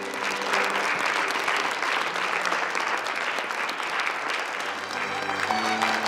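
Crowd applauding steadily, breaking out right at the start, with background music underneath that comes through more clearly near the end.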